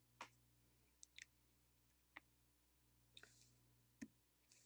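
Faint scattered clicks and ticks of a soldering iron's homemade desoldering tip working against a circuit board as SMT chip components are heated off, with two short hisses about three and four and a half seconds in, over a low steady hum.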